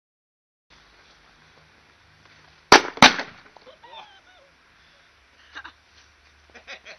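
Two sharp firecracker bangs about a third of a second apart, set off inside an upright pipe used as a small cannon.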